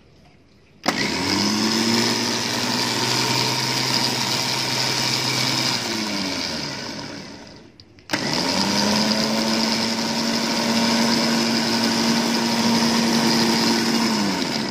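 Hi-Winch 9500STD electric winch running its steel wire rope drum twice, each run lasting about six seconds with a second's pause between. Each run starts with a click and a whine that rises in pitch, holds steady, then winds down with a falling whine.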